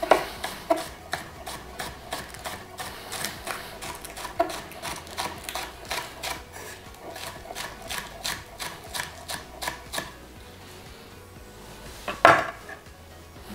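Chef's knife slicing spring onions on a bamboo chopping board: quick, even strokes of the blade hitting the wood, about three or four a second, for about ten seconds. Then a pause, and one louder knock near the end as the knife is laid down on the board.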